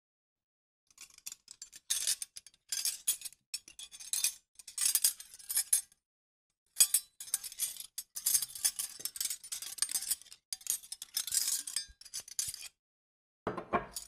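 Metal cutlery clinking and rattling as it is laid on a table: quick runs of clinks and light scrapes in two spells, with a pause of about a second in the middle. Just before the end comes a short, lower-pitched sound.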